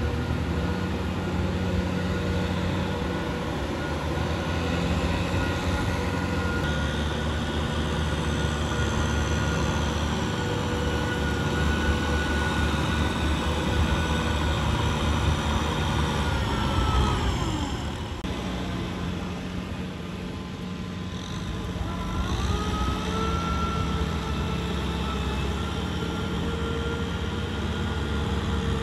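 Small farm tractor's diesel engine running steadily as it works a flooded rice paddy. Its pitch falls away about two-thirds of the way through, then rises again a few seconds later.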